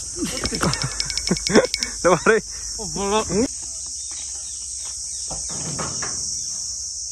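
Steady, high-pitched shrill of insects throughout. Over the first three seconds, short wordless shouts and cries from a man's voice, with a quick run of clicks about half a second in.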